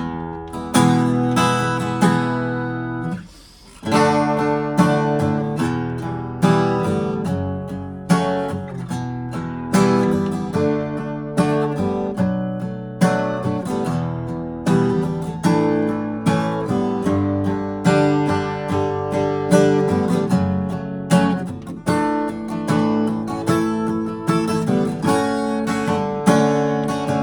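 Year-2000 Gibson J-45 steel-string acoustic guitar playing strummed chords that ring out between strokes, with a mellow, subtle tone. There is a brief break in the playing about three and a half seconds in.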